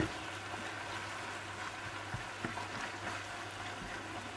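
Minced beef and diced onion frying in a pan with a steady, quiet sizzle as it is stirred with a spatula, with one sharp click of the spatula against the pan at the start. The mince is nearly browned.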